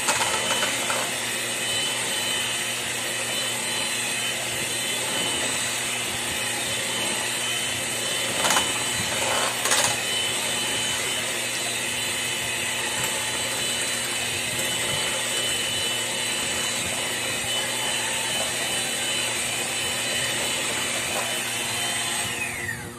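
Electric hand mixer running steadily with a high whine, its beaters whisking a thin liquid mixture in a stainless steel pot. Two sharp knocks come about eight and a half and ten seconds in, and near the end the mixer is switched off and its whine falls away.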